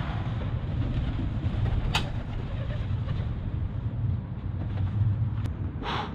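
Steady low rumble of wind buffeting a body-worn action camera's microphone, with two brief rustles of movement, a sharp one about two seconds in and a longer one near the end.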